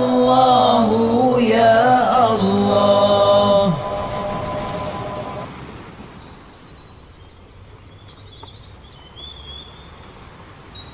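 A solo voice chanting zikir, a long drawn-out note with echo that fades out about four seconds in. Then a soft stretch of surf-like noise with a few high bird chirps.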